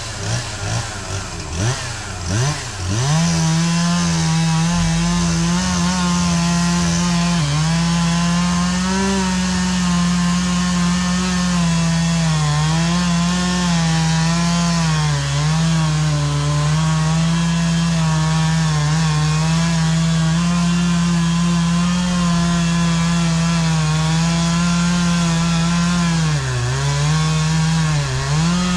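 Chainsaw revved in a few short blips, then held at full throttle cutting into a pine trunk from about three seconds in. Its pitch dips briefly every so often as the chain loads up in the wood.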